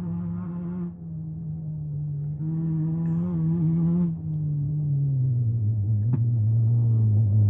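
Off-road race vehicle's engine running and getting louder as it approaches, its note dropping about halfway through.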